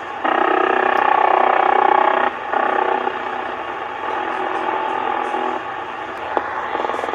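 Icom IC-720A HF receiver in AM mode on the 27 MHz (11-metre CB) band, putting out a warbling signal over its speaker that the owner takes for an over-the-horizon radar. It is loudest for the first two seconds, then carries on a little lower, with a single click near the end.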